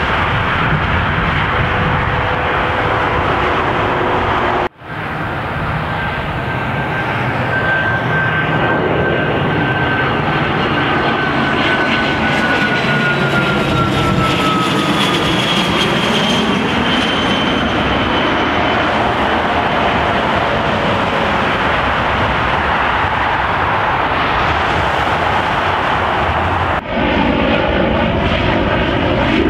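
Airliner engines passing, with a whine that slowly falls in pitch as the aircraft goes by. After an abrupt cut near the end, a turboprop's propellers run with a steady, even-toned drone.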